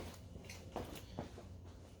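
Faint clicks and taps of small tools and connector parts being handled while soldering a coax connector. There are about three light knocks over a low steady hum.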